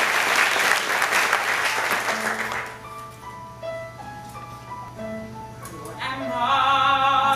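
Audience applause that fades out over the first two and a half seconds. It gives way to the number's accompaniment, slow single held notes, joined about six seconds in by a louder, wavering held chord.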